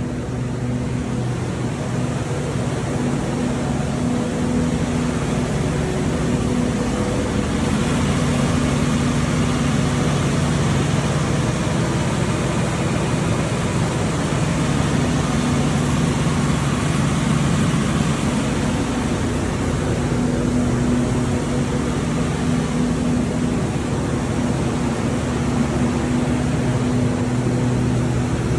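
Engine-driven power generator running steadily at constant speed, a low even hum with mechanical noise over it.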